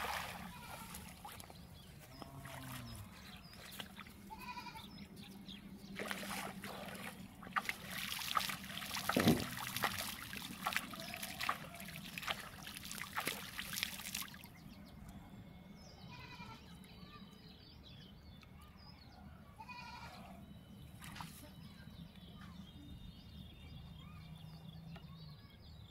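Shallow water splashing and dripping as a cast net is hauled back in by its rope, busiest in the middle stretch, with an animal calling once in the middle and a steady low hum underneath.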